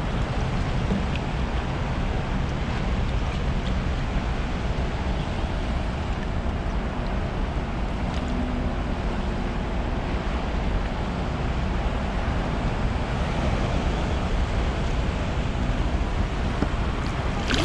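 Steady wind noise on the microphone over the wash of sea water around the kayak, with no clear single event.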